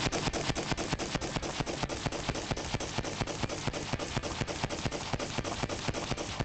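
DPMS Mark 12 AR-15 rifle firing a long rapid string of semi-automatic shots, about six or seven a second, steady and unbroken.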